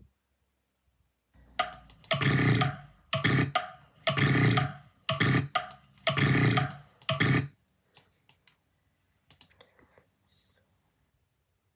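A person making a run of loud, rasping throat sounds: about six short bursts in quick succession, followed by a few faint clicks.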